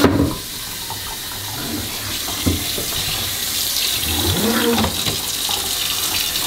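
Water running steadily from a pull-down kitchen faucet's spray head into a stainless steel sink, the stream splashing on the sink bottom, with a small click about two and a half seconds in.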